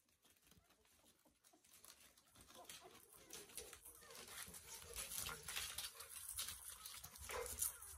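A litter of Labrador retriever puppies nursing: a busy patter of wet suckling clicks and smacks, faint at first and growing louder, with a brief squeak near the end.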